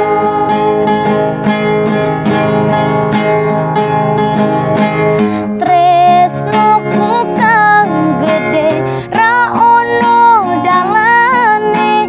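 A woman sings a Javanese-language song over a strummed acoustic guitar. Her voice holds long notes at first, then from about halfway moves into ornamented runs that bend up and down in pitch.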